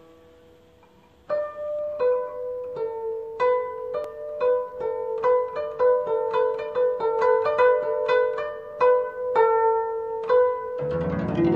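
Background music: a slow melody of single plucked-string notes, each ringing out and fading, after a faint held note at the start. Near the end a fuller accompaniment with lower notes comes in.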